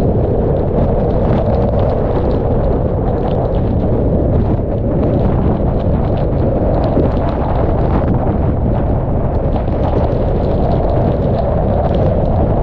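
Hurricane eyewall wind buffeting a roof-mounted camera's microphone in a steady, loud low rumble, with rain spattering against the camera.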